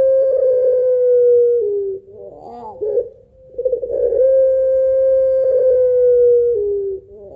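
Puter pelung (domestic ringneck dove) giving its long drawn-out call: a long held note that slides slightly lower, steps down and stops about two seconds in, a short rippling 'laugh', then a second long note that falls and steps lower near the end.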